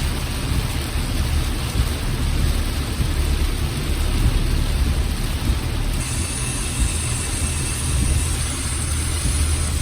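Car driving in the rain: a steady low road and engine rumble under an even hiss of rain and tyre noise, with a thin high hiss joining about six seconds in.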